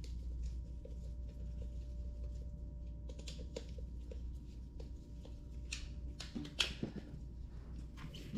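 Small scattered clicks and taps of a hex tool and screws being worked on a scooter wheel, with a burst of louder knocks about six and a half seconds in, over a low steady hum.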